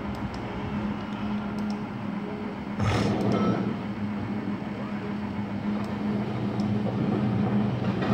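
Film soundtrack played through a laptop's small speakers: a steady low drone over rumbling, with a sudden loud burst about three seconds in, after which it stays louder.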